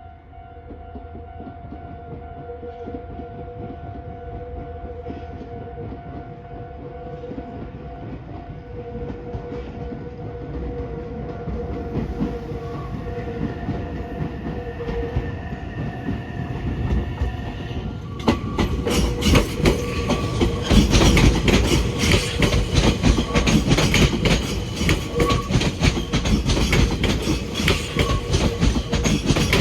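Level-crossing warning bell ringing steadily while a Meitetsu 2200 series electric train draws closer, growing louder. From about 18 seconds in, the train runs over the crossing with loud, rapid clickety-clack of wheels over rail joints.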